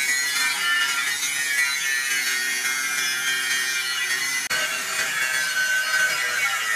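Electric angle grinder with a thin abrasive cutting disc cutting into a steel disc-plough blade: a steady, high grinding screech. It breaks off for an instant about four and a half seconds in, then carries on.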